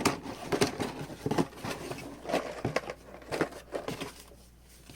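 Packaging and kit pieces being handled: irregular crinkling, rustling and light knocks that stop about four seconds in.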